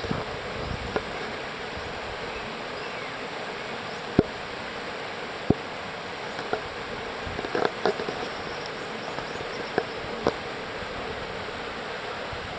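River rapids rushing over rocks as a steady, even noise, under a faint steady hum. Several sharp clicks and taps are scattered through it, clustering a little past the middle.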